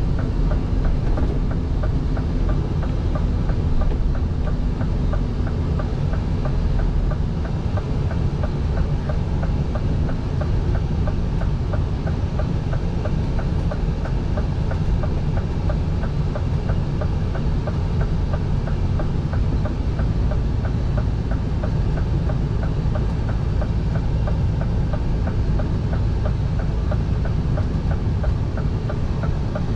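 Inside the cab of a Scania prime mover driving at highway speed: a steady engine drone and road noise, with a fast, even ticking running through it.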